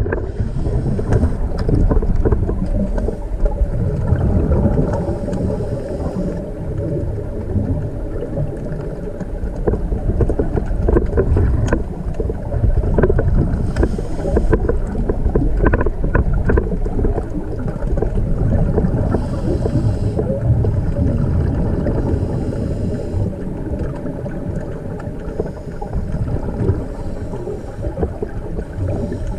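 Underwater ambience: a steady low rumble of moving water against the camera, with a faint hissing rush every several seconds.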